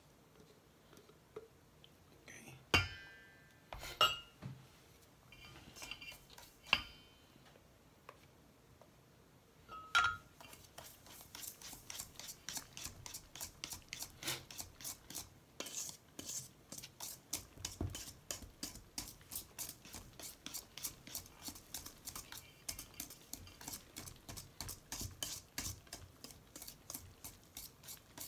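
A few separate clinks of kitchen utensils, then, from about ten seconds in, a wire whisk beating cake batter in a stainless steel bowl in a fast, even rhythm of about three strokes a second.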